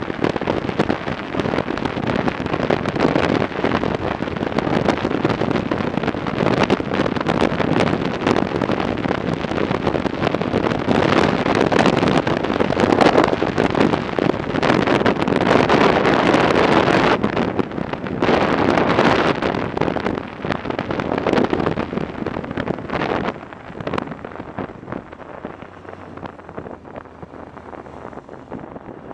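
Wind buffeting the microphone of a Yamaha XJ 900 Diversion motorcycle riding along at road speed, a loud rushing that covers the bike's running. It eases off about three quarters of the way through as the bike slows into a roundabout.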